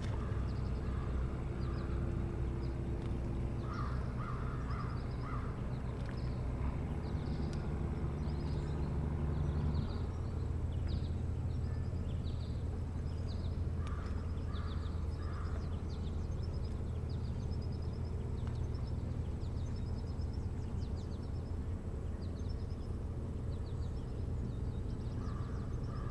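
Steady low motor rumble that shifts in pitch about ten seconds in. A bird gives short series of three or four harsh, crow-like calls a few times over it, with faint high chips throughout.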